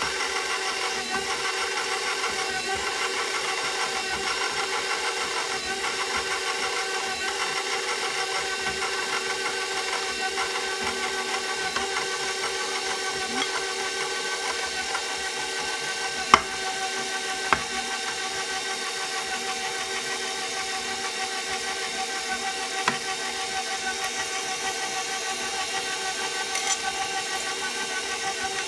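KitchenAid Professional 5 Plus stand mixer running on a very low speed, its flat beater working flour into creamed butter and sugar: a steady motor hum in several tones. Two sharp clicks sound a little past the middle.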